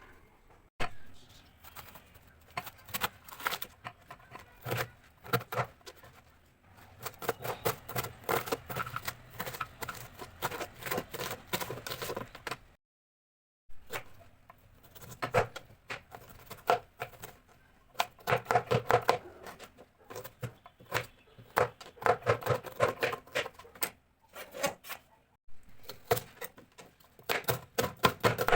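Rapid, irregular tapping and clatter of kitchen utensils, with a ringing tone like metal cookware being struck, in bursts; the sound cuts out completely for under a second just before the middle.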